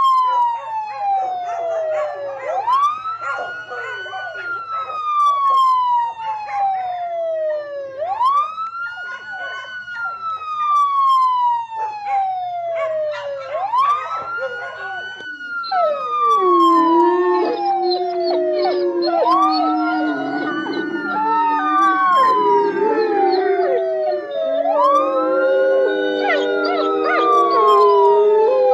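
Emergency vehicle siren on a slow wail, sweeping up quickly and falling slowly, repeating about every five and a half seconds. From about halfway, several canines join in, howling in long, wavering tones under the siren, and grow louder near the end.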